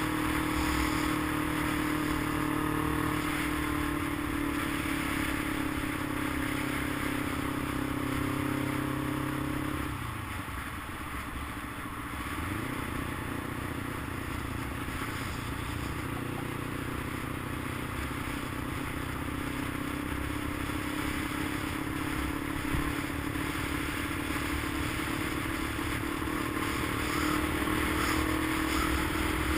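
A vehicle engine running steadily while driving, with road noise. About ten seconds in the engine note falls away and the sound dips, then the steady engine tone comes back and holds for the rest of the stretch.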